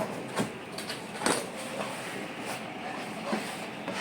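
Packaging rustling and scraping as a new pan is unpacked, with a few short knocks and clicks of the item being handled.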